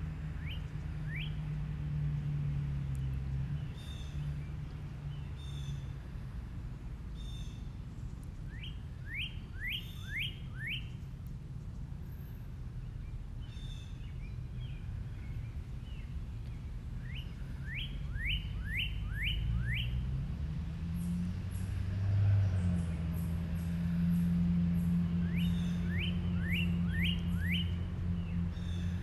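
Birds singing, with bursts of four or five quick sweeping whistled notes every several seconds among short higher chirps, over a steady low hum that grows louder in the second half.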